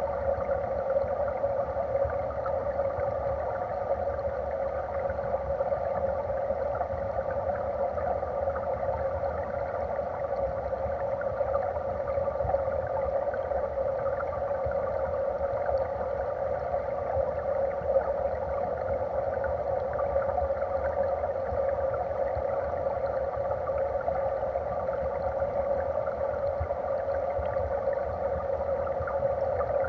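Steady rush and gurgle of stream current heard underwater through a submerged camera, even and unbroken.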